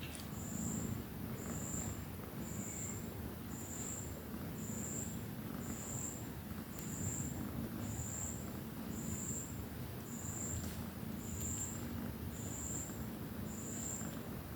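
Nursing mother cat making a low, rumbling purr that swells and fades. Over it, a short, thin, high-pitched chirp repeats about once a second.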